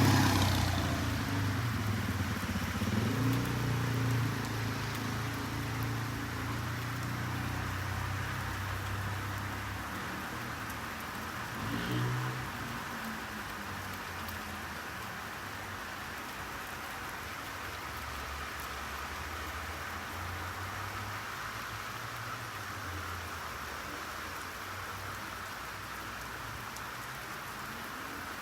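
Steady rainfall hissing throughout. A low rumble of a passing vehicle is loud at the start and fades away over the first ten seconds, with a brief second swell about twelve seconds in.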